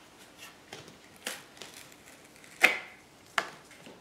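Clear plastic toothbrush packaging being handled and pried at: scattered clicks and crackles, the loudest about two and a half seconds in.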